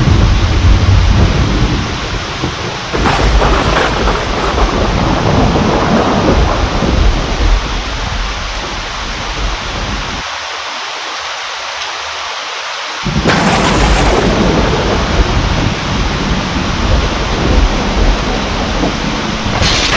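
Steady heavy rain with rolling thunder. The low rumble fades out around halfway through, leaving the rain alone for a few seconds, and a new rumble of thunder comes in suddenly about two-thirds of the way through.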